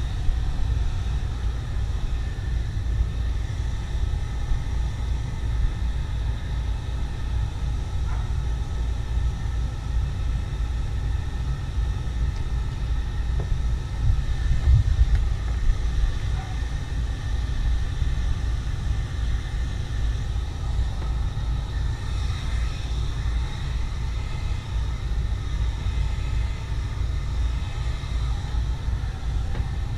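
Steady low rumble of wind buffeting an outdoor microphone, rising and falling in strength without a break.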